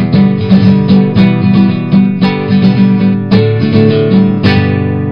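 Strummed acoustic guitar music, with chords struck in a steady rhythm. A last chord about four and a half seconds in is left to ring and fade away.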